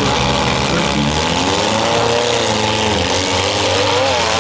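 Several demolition derby cars' engines running and revving together, their pitches rising and falling over one another.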